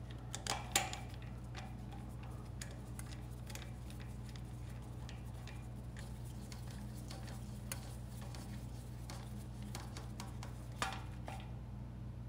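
Light metallic clicks and taps from screws and hand tools on a generator's alternator end cover, a few sharper clicks near the start and one near the end, over a faint steady low hum.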